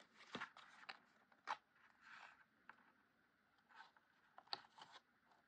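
Faint handling of cardstock: paper rustling and scraping as it is folded and pressed together, with a few small sharp clicks.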